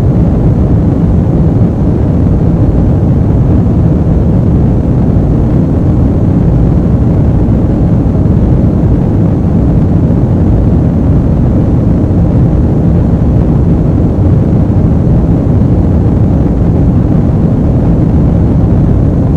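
Airplane ambient noise: a steady, loud, low rumble of an aircraft in flight, unchanging throughout with no distinct events.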